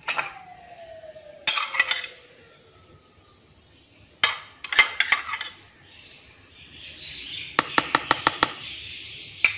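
A spoon clinking and scraping against a plastic food container as yogurt is spooned onto the beans, in short groups of sharp clicks, with a quick run of about six taps near the end.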